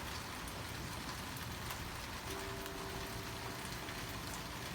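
Steady tropical-storm rain falling, an even hiss of drops.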